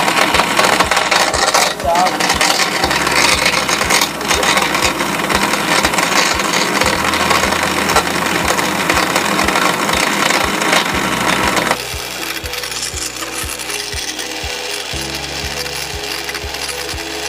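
Electric mixer grinder running at full speed, blending a steel jar of milk and chocolate bars into a shake with a loud steady grinding whir. About twelve seconds in it turns noticeably quieter but keeps running.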